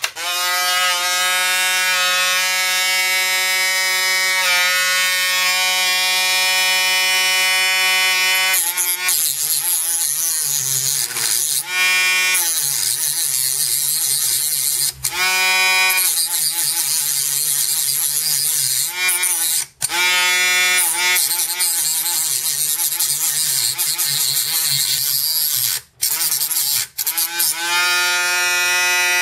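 Dremel rotary tool with a cut-off wheel, starting up to a steady high whine, then wavering and dipping in pitch from about eight seconds in as the wheel cuts into the record changer's tone-arm cartridge mount, with a few brief drop-outs.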